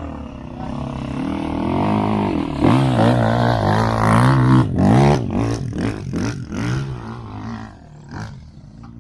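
Side-by-side UTV engine revving up and down several times as the machine strains on a steep slope of soft dune sand, then dropping back to a lower, quieter run near the end.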